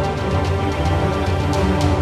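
Instrumental background music with sustained chords, a heavy bass line and a steady percussion beat.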